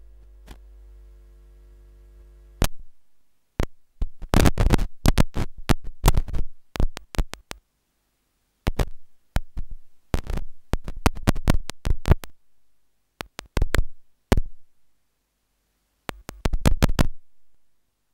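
Corrupted digital audio: a steady electronic buzz of stacked tones for about two and a half seconds, then choppy clicks and bursts of noise broken by silent gaps. This is a dropout glitch in the recording in place of the speaker's voice.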